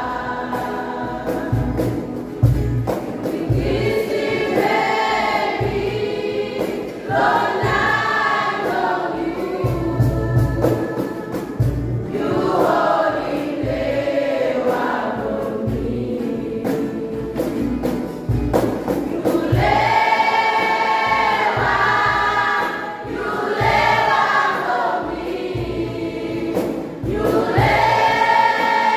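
Children's church choir singing a gospel song, with some adult voices among them, in phrases that swell and pause every couple of seconds.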